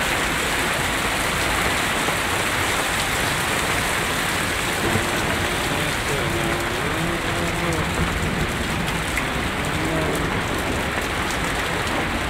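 Torrential rain beating down on a flooded street: a steady, loud, dense hiss.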